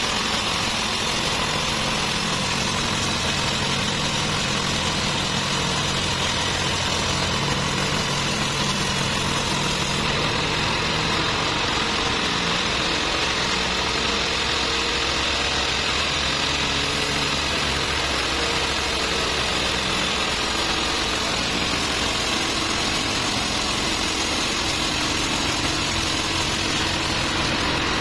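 Large band sawmill running steadily, its blade cutting lengthwise through a big trembesi (rain tree) log: a continuous machine drone under the hiss of the blade in the wood.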